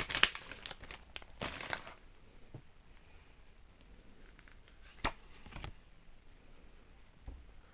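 Foil wrapper of a Pokémon card booster pack crinkling for about two seconds as the cards are pulled out, followed by a few faint taps and shuffles of the cards being handled.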